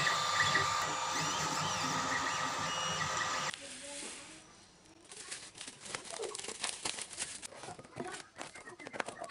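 Creality Ender 3D printer's stepper motors whining in several steady tones with short pitch slides as the print head moves. About three and a half seconds in this cuts to a quieter stretch of crinkling and crackling: bubble wrap, paper and cardboard being handled as a parcel is unwrapped and a filament box opened.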